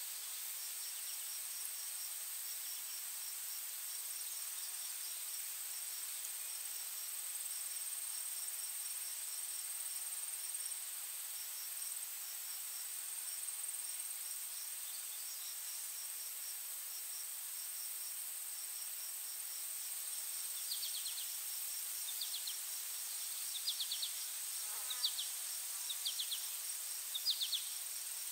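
Insects chirping in a steady, high-pitched chorus with a rapid repeating pulse. About two-thirds of the way in, short, louder chirps join in, roughly one a second.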